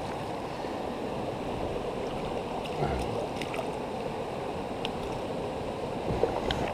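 Shallow river current running steadily over stones, a constant rushing hiss, with a few faint clicks scattered through it.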